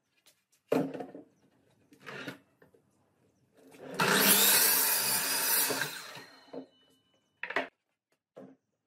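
Sliding compound miter saw spinning up and cutting through a wooden plank for about two seconds, then winding down. Short wooden knocks of the board being set on the bench come before the cut, and of the cut piece being lifted off come near the end.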